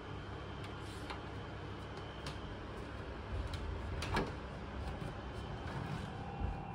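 A wooden door being handled: a few light clicks and knocks, the loudest about four seconds in, over a steady low background noise.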